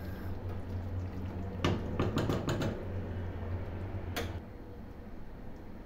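A wooden spoon stirs thick stew in a stainless steel pot, knocking against the pot in a cluster of clicks about two seconds in, then one sharp knock about four seconds in. A steady low hum runs underneath.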